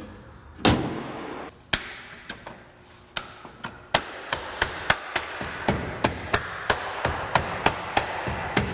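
A single loud thump as the hood is pushed shut, then from about halfway through a steady run of sharp slaps, about three a second, as gloved hands pat along the edge of a freshly installed windshield to press the glass and moulding into place.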